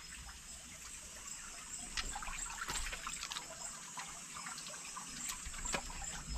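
Shallow mountain stream trickling over and between rocks, with a few small clicks through the middle.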